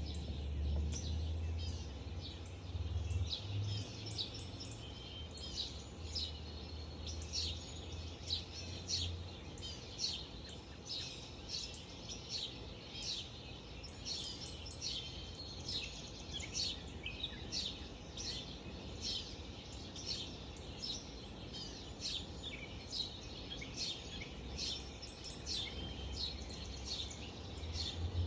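Many birds chirping and singing at once in a dense, continuous early-morning dawn chorus. A low rumble sits underneath for the first several seconds.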